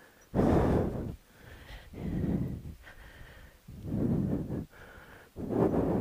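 A man breathing heavily close to the microphone: four loud breaths, one every second and a half or so.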